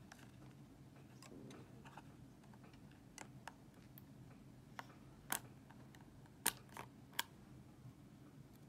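Fingers and nails peeling the clear plastic seal off a small cardboard box: a scatter of sharp little clicks and crackles, the loudest three coming between about five and seven seconds in.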